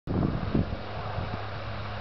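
Wind buffeting the microphone in uneven gusts, heaviest in the first half second, over a steady low hum.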